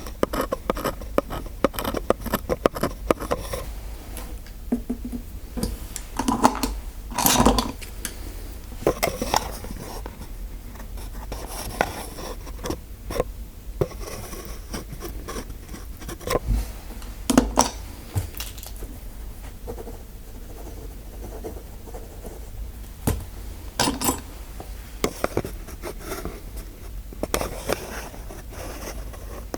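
Metal dental tools scraping and clicking close to the microphone: irregular sharp clicks and short scratchy scrapes, with a few louder clicks scattered through.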